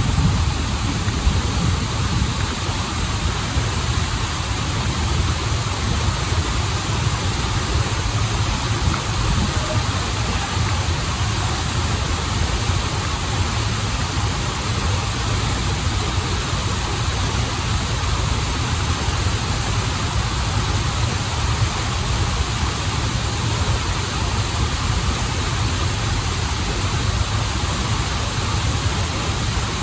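Waterfall and river water rushing steadily: an even, unbroken noise with a strong low rumble underneath.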